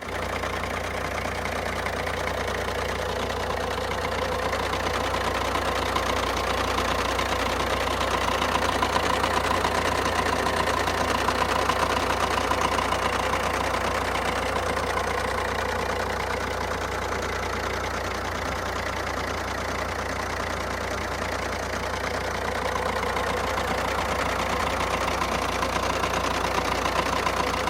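Fiat Tipo 1.6 MultiJet diesel engine idling from a cold start, clutch engaged, with a steady extraneous noise running over the idle. The noise goes away when the clutch pedal is pressed and after warm-up; the owner suspects the clutch release bearing.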